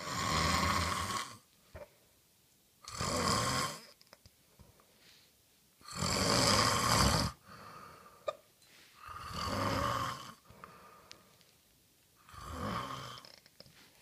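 Snoring: five snores, each lasting about a second, roughly three seconds apart.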